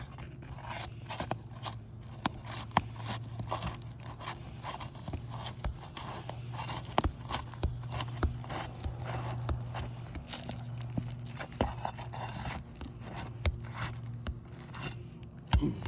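Asphalt shingles being pried up off their sealant strips: irregular crackling, ticking and scraping as the seal bond tears, with the shingle's mat tearing away and sticking to the sealant (mat transfer), the sign that the shingles are being damaged as they are lifted. A steady low hum runs underneath.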